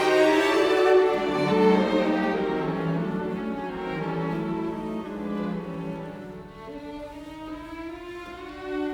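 Background music of slow bowed strings, violin and cello, fading gradually.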